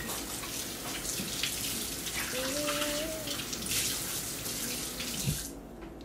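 Water running from a kitchen tap into a stainless steel sink, with hands rinsing under it; the water is shut off about five and a half seconds in.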